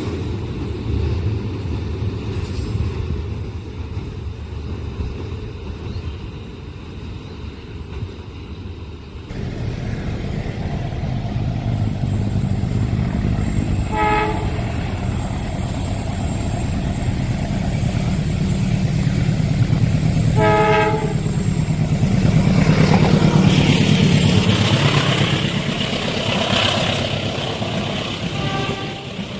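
Trains passing a level crossing. First comes the steady rumble and clatter of rolling wagons. After a sudden change about nine seconds in, a locomotive horn sounds two short blasts several seconds apart, then a train passes close and loud, with its pitch sweeping up and down, and the horn sounds briefly once more near the end.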